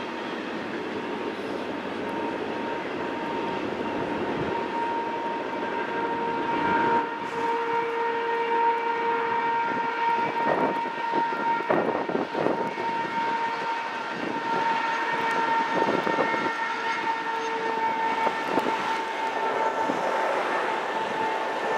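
Double-stack intermodal container cars of a long freight train rolling past, with a steady high-pitched squeal over the rumble. A few sharp clanks come about halfway through.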